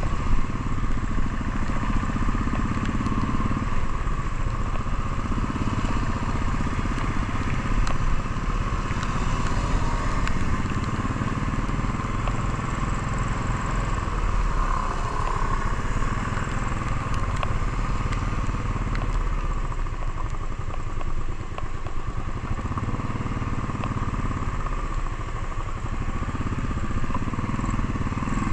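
Motorcycle engine running steadily under way on an uphill road, its note rising and falling a little every several seconds, over a constant low rush of noise.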